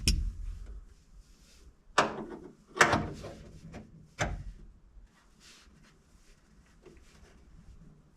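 Four hard knocks and clunks, about a second apart in the first half, as hardware is set and fitted into place in the truck cab, then only faint handling noise.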